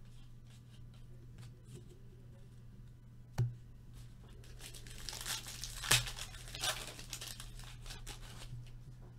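A trading-card pack wrapper being torn open and crinkled: a stretch of tearing and crackling from about five to seven and a half seconds in, after a single sharp tap about three seconds in. A low steady hum runs underneath.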